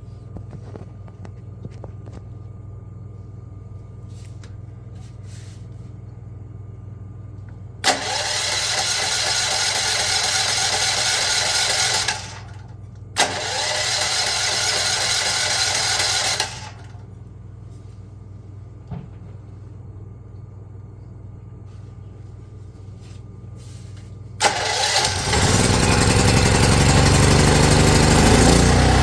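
Champion 4000-watt generator's electric starter cranking the engine in two bursts of about four and three seconds without it catching; on a third try near the end the engine fires and keeps running. This is the first start after its carburetor and jets were cleaned.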